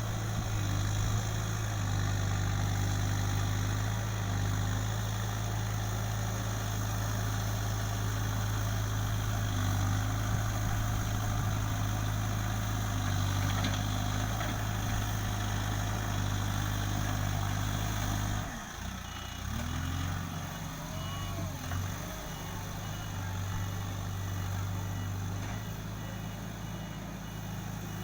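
Backhoe loader's diesel engine running steadily. About two-thirds of the way through its note drops and shifts, with a few short rising glides in pitch, before it settles again.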